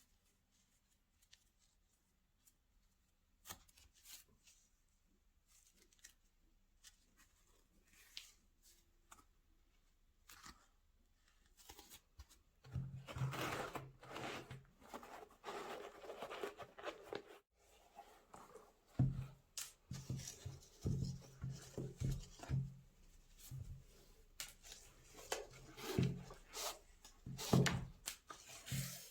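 Hands unpacking a sneaker box: scattered clicks and taps, then from about halfway through louder crinkling and rustling of paper packing with dull thumps of handling.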